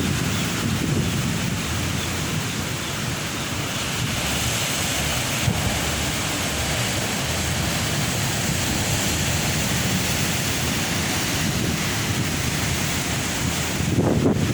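Ocean surf breaking and washing in steadily, with wind buffeting the microphone; a louder low surge comes in near the end.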